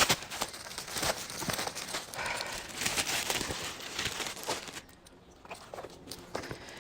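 Irregular crinkling, crackling and clicking, like something being handled or unwrapped, dying down about four and a half seconds in to a few scattered clicks.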